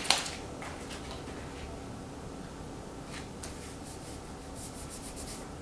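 Faint rustling and rubbing of paper as a printed picture is pressed and smoothed onto poster board by hand, with a few soft scratchy strokes, several close together near the end.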